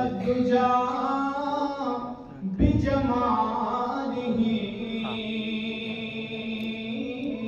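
A male qari's voice chanting melodically and unaccompanied through a microphone and PA, in long held, ornamented phrases. A new phrase starts about two and a half seconds in, over a steady low hum.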